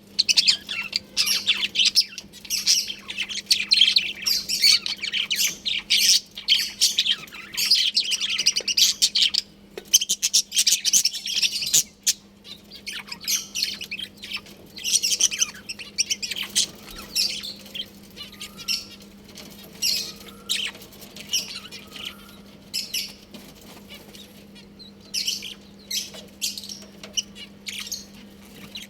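A colony of budgerigars chirping and chattering, many birds at once. The chatter is dense and loud for about the first twelve seconds, then thins to scattered chirps, over a steady low hum.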